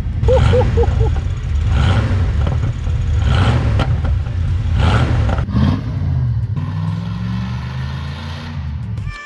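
Mercedes-Benz R107's engine heard through its newly fitted exhaust with fresh center and rear mufflers, revved in several blips about a second and a half apart, then settling to a steady idle near the end.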